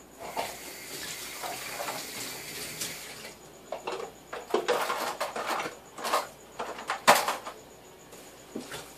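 Kitchen tap running into a stainless steel sink for about three seconds. Then dishes and utensils clink and knock as they are rinsed and handled, with the sharpest knock about seven seconds in.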